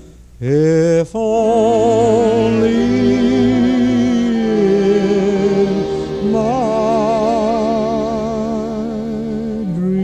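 Background music: a slow piece of long held notes with a wide vibrato, starting with a note that slides up about half a second in.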